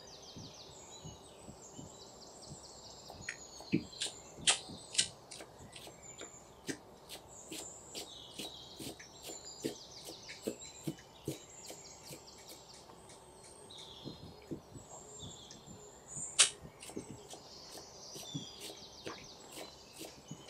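Kitchen knife chopping fresh parsley on a wooden cutting board: irregular knocks of the blade on the wood, a few much louder than the rest. Birds chirp in the background throughout.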